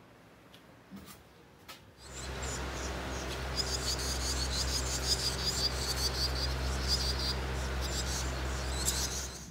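Barn swallow nestlings giving rapid, high-pitched begging chirps as they are fed at the nest, over the steady low hum of a barn fan. Both start about two seconds in, after a quiet moment with a few faint clicks.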